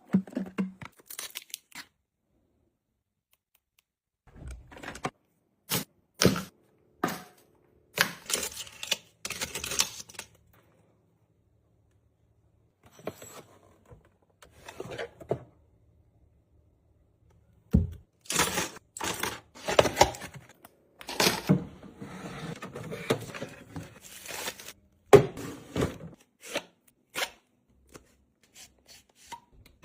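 Intermittent handling of objects and packaging: sharp taps and clicks of things being picked up and set down, with stretches of rustling and tearing, broken by silent pauses.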